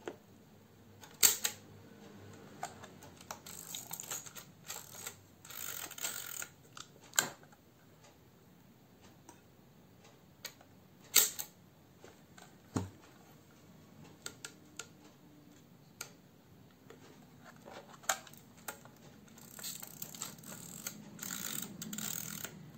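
Mamiya C33 twin-lens reflex camera being worked by hand: a handful of sharp mechanical clicks from its controls, and two stretches of fast ratcheting as a knob or the side wind crank is turned, the second near the end.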